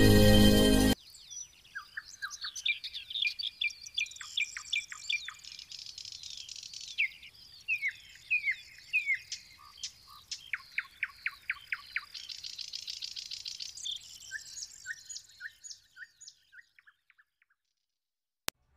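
A short burst of music, then many small songbirds chirping and singing together, with rapid trills and quick slurred whistles, thinning out and fading near the end.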